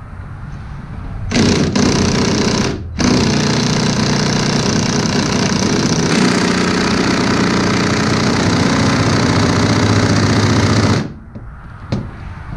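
Cordless impact wrench hammering on a stuck bolt in a snowmobile's front suspension. It starts about a second in, stops briefly near three seconds, then runs steadily until it cuts off shortly before the end without the fastener coming free.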